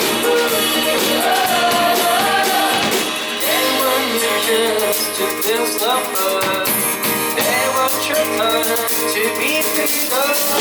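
Live indie rock band playing, with a sliding melody line over guitars and drums. The deep bass drops out about three seconds in.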